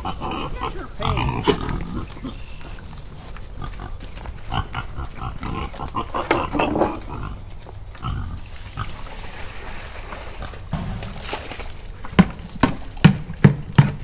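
Pigs grunting and snuffling as they eat slop off the ground. A few sharp knocks come in quick succession near the end.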